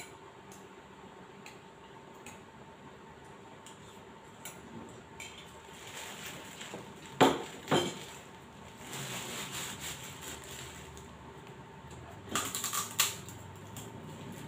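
A metal spoon clinking and scraping against a ceramic bowl while eating, with two sharp knocks about halfway through as the bowl is set down on the table. A short burst of clattering handling noise follows near the end.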